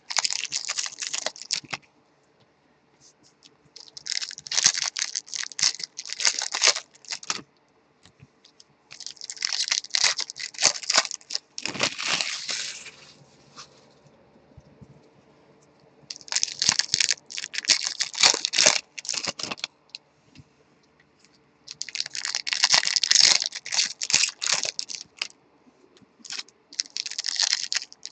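2020 Bowman baseball card packs being torn open by hand and the cards inside handled: about six bursts of crinkling and rustling, each a couple of seconds long, with short quiet gaps between them.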